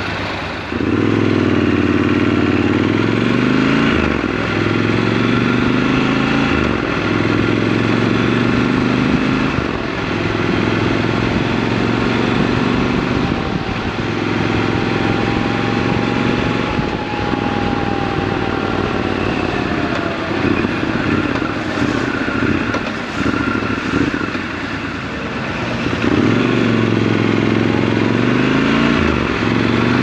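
Triumph Scrambler 1200 XC's 1200 cc parallel-twin engine, heard from the saddle, pulling away from a standstill and accelerating up through the gears, the revs dropping briefly at each shift, then cruising. About two-thirds through the revs fall off, and the engine accelerates hard again near the end.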